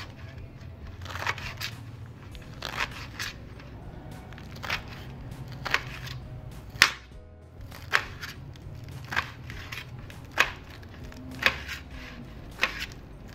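A knife chopping fresh spinach leaves against a hard surface, the blade coming down with a sharp knock about once a second, at an uneven pace, as the leaves are cut finer.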